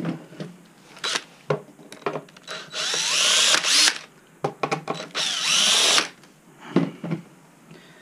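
Cordless drill-driver backing out two screws from an electric skateboard's frame, in two runs of about a second each, its motor pitch sliding as it spins up and slows. Sharp knocks from the board and tools being handled fall before, between and after the runs.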